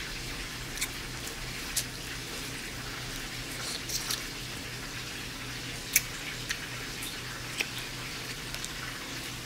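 Wet mouth sounds of a person sucking and chewing orange pulp: scattered short smacks and slurps, the sharpest about six seconds in.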